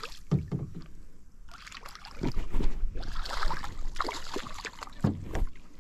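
A hooked snook thrashing and splashing at the surface beside a small boat, loudest for a couple of seconds in the middle, with a few dull thumps.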